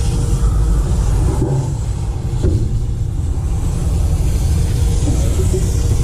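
A steady low rumble dominates, with a fainter hiss from a hand pump sprayer's wand misting coil cleaner onto an air-conditioning coil.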